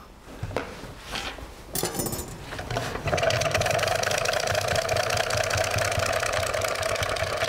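A hand-cranked Japanese rotary mandolin (sheet slicer) turning a raw beetroot against its blade, a steady whirring rasp starting about three seconds in as it peels the beetroot into one long, very thin sheet. A few knocks come before it as the beetroot is set up on the machine.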